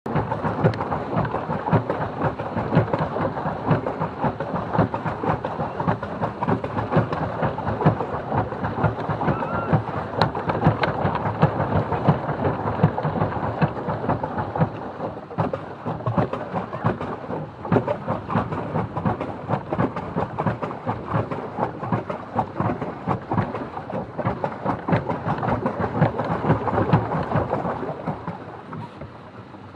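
Pedal boat's paddle wheel churning and splashing water in a dense, irregular patter. It dies down near the end as the paddling eases.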